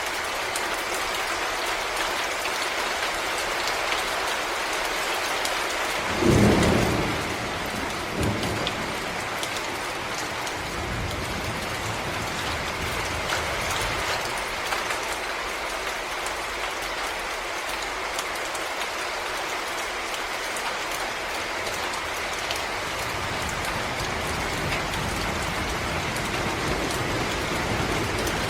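Steady rain falling in a forest, an even hiss of drops. About six seconds in comes a brief low thump, the loudest sound here, with a smaller one two seconds later.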